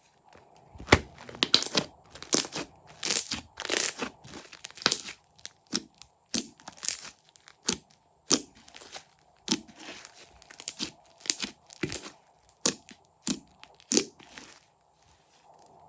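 Hands squeezing, stretching and pulling apart slime, giving a run of short, irregular crackling and squishing pops about one or two a second.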